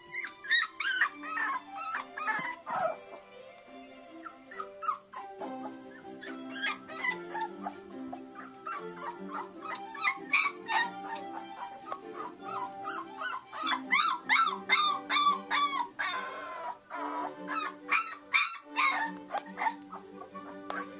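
Very young puppy, about three weeks old, whimpering and squealing in many short, arching high-pitched cries, over background music with sustained notes.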